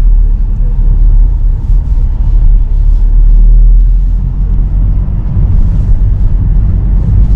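A car driving slowly, heard from inside the cabin: a steady low rumble of engine and tyres on the road.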